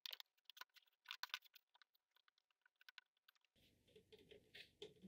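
Faint, scattered clicks and crackles of a clear plastic moss pole panel being bent along its notched folds over a table edge.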